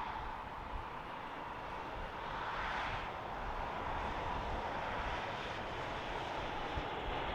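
Jet airliner engines running steadily, swelling briefly a little before halfway, over the low rumble of wind buffeting the microphone.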